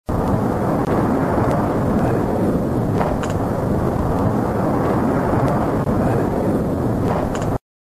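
Loud, steady rushing noise of a fire tornado's swirling wind and flames, with a few faint ticks. It starts and cuts off abruptly.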